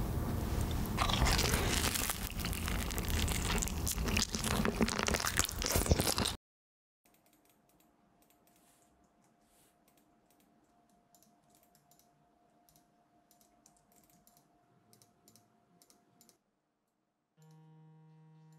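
Crunching bites of seasoned-powder fried chicken with music underneath for about six seconds. It cuts off suddenly to near silence with a few faint computer-mouse clicks. About a second before the end, a smartphone alarm sounds a steady buzzing tone.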